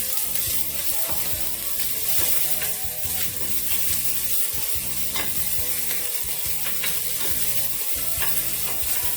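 Chopped onion, carrot and celery sizzling in olive oil in a pan while being stirred, with scattered clicks and scrapes of the utensil against the pan.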